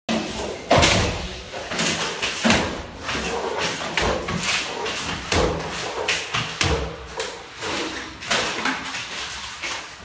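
Irregular thuds and scrapes of drywall finishing: trowels and hawks loading and spreading joint compound on a ceiling, with knocks from the workers' stilts and ladder.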